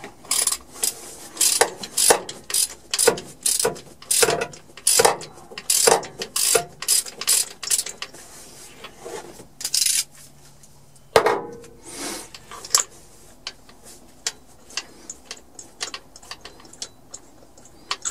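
Socket ratchet clicking as a spark plug is worked loose from the engine's cylinder head, in short back-and-forth strokes about twice a second for most of the first half, then scattered clicks.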